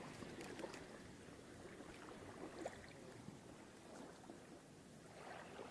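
Very faint, quiet retrieve: a spinning reel being cranked steadily, with a few small ticks, over light water and wind noise at the shoreline.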